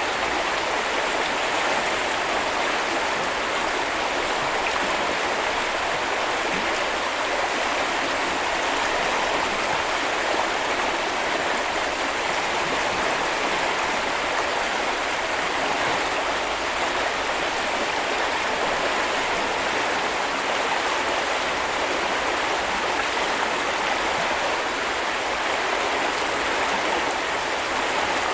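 Flowing stream water, a steady, even rush that does not change.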